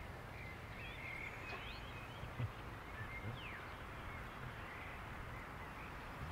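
Faint outdoor ambience: a steady low rumble with scattered short bird chirps.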